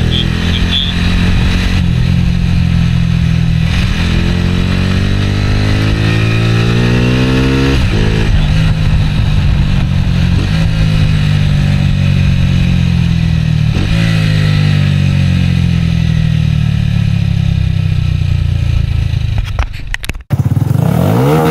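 Small motorcycle engine ridden through town, heard from the rider's seat, its pitch climbing and dropping back with a gear change every few seconds. Near the end it cuts off for a moment, then an engine revs up again.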